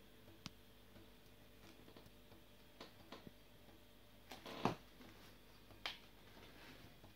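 Quiet room with a few faint, scattered clicks and taps, and a short louder knock with a rustle about four and a half seconds in, then another click near six seconds.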